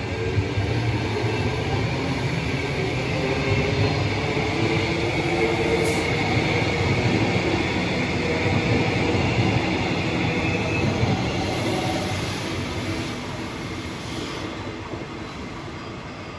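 Queensland Rail suburban electric multiple-unit train running past on the rails, with a dense rumble of wheels and running gear and a faint high tone through the middle. The sound fades over the last few seconds as the train moves away.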